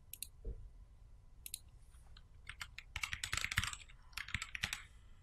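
Computer keyboard typing: two quick runs of keystrokes starting about two and a half seconds in, after a couple of single clicks.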